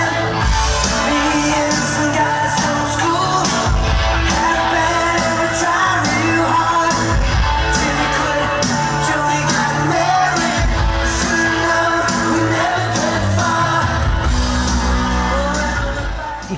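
Music with a singing voice, loud and continuous, with a heavy bass note coming back about every three and a half seconds.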